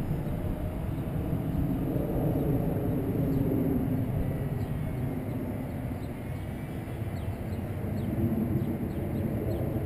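Wind rumbling on the microphone, with the faint wavering whine of a small RC parkjet's brushless motor and propeller flying at a distance.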